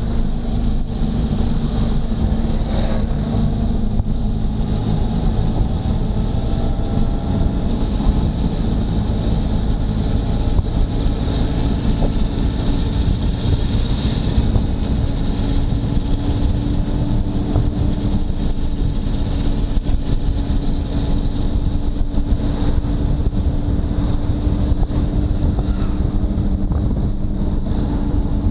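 Motorcycle engine running at a steady cruising speed, with wind rushing over the microphone. The engine note rises a little in pitch about halfway through as the bike speeds up.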